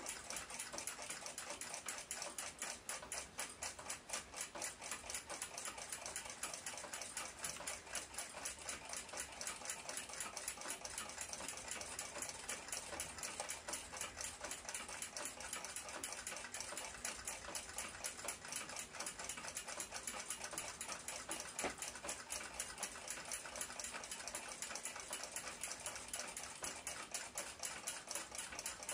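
A timepiece ticking quietly, steadily and fast, about five ticks a second.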